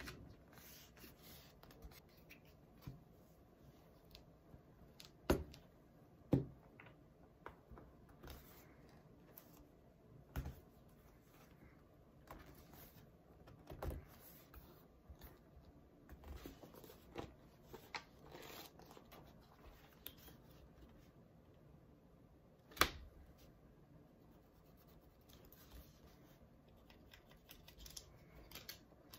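Paper rustling and crinkling as hands fold and crease it around a book's cover, with scattered sharp taps; the loudest taps come about five and six seconds in and again near twenty-three seconds.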